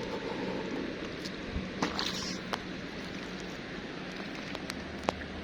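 Steady rushing of river water, with a few sharp clicks and taps, the sharpest about five seconds in.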